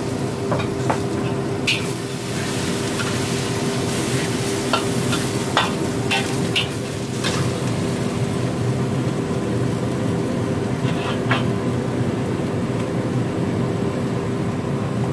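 Chicken breast and chopped chives sizzling in a hot wok while a metal spatula stirs and scrapes through them, with sharp clicks of the spatula against the wok now and then. A steady hum runs underneath.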